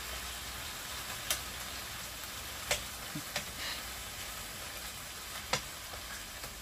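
Pork ribs sizzling in a frying pan on a portable gas burner, with a few sharp clicks of metal tongs and kitchen scissors against the pan as the meat is cut and turned.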